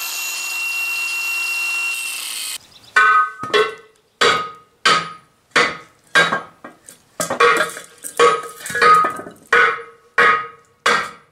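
Angle grinder with a cut-off disc slicing through a cast iron pipe fitting, a steady whine for about two and a half seconds, then a dozen or so hammer blows, each ringing briefly, splitting the brittle cast iron fitting off the steel pipe's threads.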